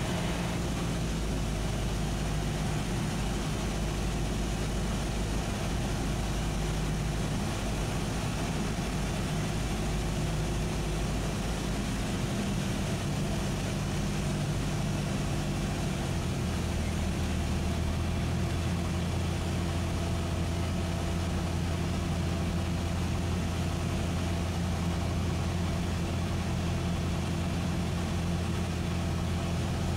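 Cessna 172SP's four-cylinder Lycoming engine and propeller droning steadily at reduced power on final approach, heard from inside the cockpit. Its tone shifts slightly about halfway through.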